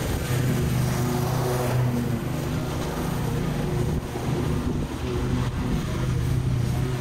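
Engine of a Scag stand-on mower running steadily while it cuts long, overgrown grass, with a couple of brief dips in level near the middle.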